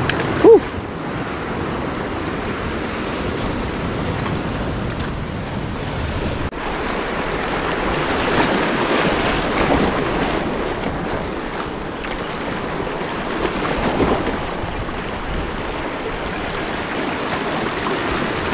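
Surf washing over a rocky reef, swelling and easing in waves, with wind buffeting the microphone. A short, sharp, loud sound comes about half a second in.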